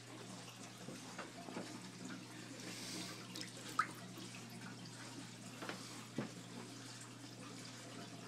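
Aquarium filter water trickling and splashing steadily over a low steady hum, with a few light clicks scattered through, the sharpest about four seconds in.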